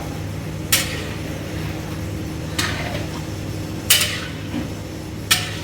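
A metal spoon or ladle knocking against a large metal cooking pot four times, each knock ringing briefly, over a steady low hum.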